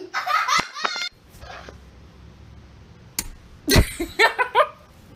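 A child giggling and laughing, cut off about a second in. Later comes a sharp click, then a thump and a few short, rising bursts of voice.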